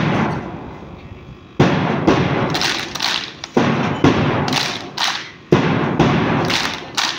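Heavy, drum-like thuds keeping time for a group exercise drill. The first comes about a second and a half in, then they follow at irregular intervals, very roughly one a second, each ringing on and fading.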